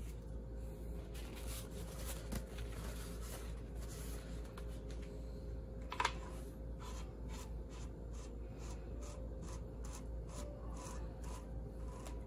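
Faint handling noise of an AEA 9mm Terminator PCP air rifle being put together by hand: metal parts rubbing and light clicks, with one sharper click about six seconds in, over a faint steady hum.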